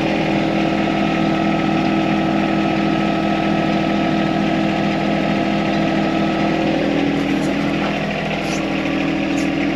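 John Deere compact tractor's diesel engine running steadily at low idle, its note shifting slightly and dipping a little about eight seconds in.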